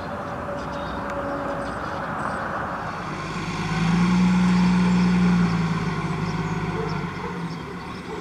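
Diesel engine of an Iveco side-loader garbage truck driving along the street. Its steady drone swells to its loudest for a second or two about four seconds in as the truck pulls forward under power, then eases off.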